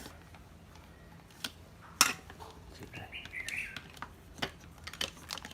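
Scattered clicks and knocks of an old corded hammer drill being handled, the sharpest about two seconds in, with a brief chirp about three seconds in.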